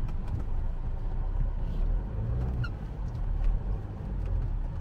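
In-cab sound of a diesel Land Rover Freelander 2 driving slowly over a rough dirt track: a steady low engine and tyre rumble with scattered knocks and clicks from the body and suspension.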